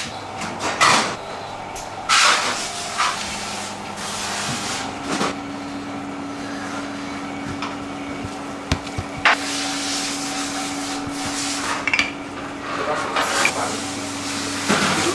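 Steady hum of commercial kitchen machinery, with a second, higher hum joining about five seconds in. Over it come occasional light knocks and taps as dough and containers are handled on a stainless steel worktop and a wooden rolling pin is set to work.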